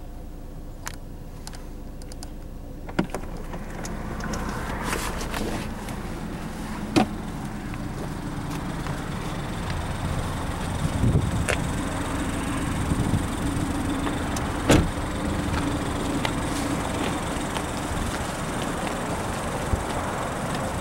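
Steady outdoor vehicle noise that swells about four seconds in, with a vehicle's hum through the middle and a few sharp knocks and clicks scattered throughout.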